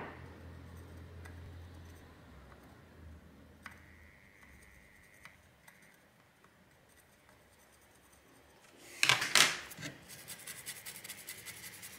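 Faint scratching of metal tweezers dragged through old thermal paste on a graphics card's GPU die. About nine seconds in comes a loud clatter, then a toothbrush scrubbing the die with rapid, even strokes.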